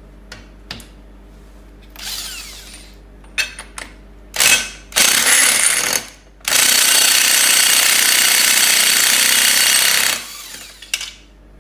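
Cordless impact wrench hammering on the large clutch centre nut of a BMW K1200S: a few short bursts, then one long run of about three and a half seconds as it works the tight nut loose on a barely charged battery.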